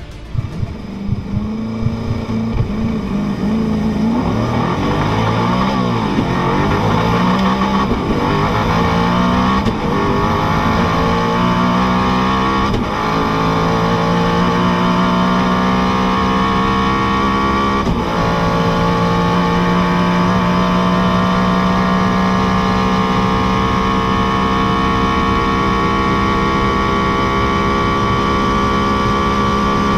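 Koenigsegg Agera RS twin-turbo V8 at full throttle from a standing start, heard from inside the cabin. The engine note rises through each gear, with quick upshifts every second or two at first and the last one a few seconds later. After that comes one long pull in top gear, the pitch climbing slowly as the car nears 400 km/h.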